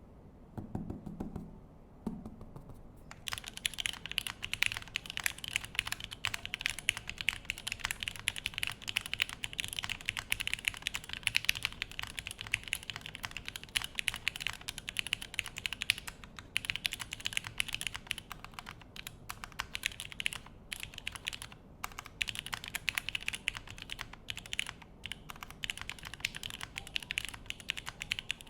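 Steady, fast typing on a Crin FRL mechanical keyboard fitted with Gateron X Milky Top switches on a polycarbonate plate, a dense run of keystrokes with a few short pauses. Typing starts about three seconds in, after a brief low bump.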